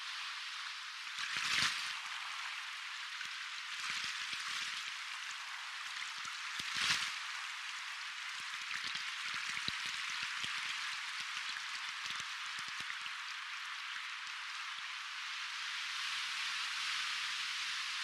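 Soft ocean waves from a sound-effects library: a steady hissing wash of water with little low rumble, swelling louder about one and a half seconds in and again around seven seconds.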